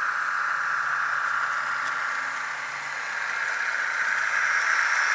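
Model Budd RDC rail car's DCC sound decoder playing diesel engine sound through its small speaker as the car runs along the track, growing louder from about three and a half seconds in.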